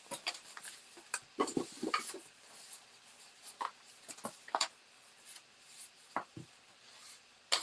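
Sheets of paper and cardstock being handled on a wooden desktop: soft rustles and light taps, coming at irregular moments.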